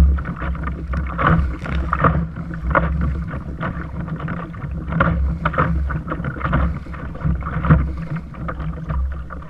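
Choppy sea water slapping and splashing irregularly against a kayak hull, with wind rumbling on the microphone that comes and goes.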